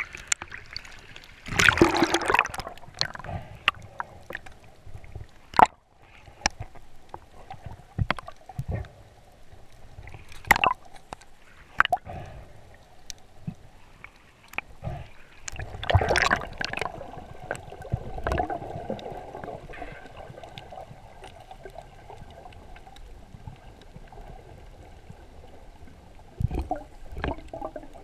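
Water sloshing and gurgling around a camera held underwater and at the surface, with scattered sharp clicks and knocks. Two louder rushes of water come about two seconds in and about sixteen seconds in.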